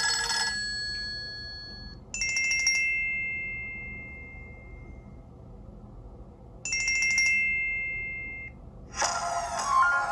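Nokia Lumia 1520 ringtone played through the phone's loudspeaker: a bell-like chime struck twice, about four and a half seconds apart, each ringing on and fading, the second cut short. A different, busier ringtone starts near the end.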